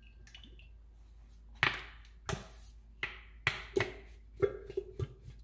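About eight sharp knocks and clinks as sauce bottles are handled over a stainless steel stockpot, some followed by a short ring.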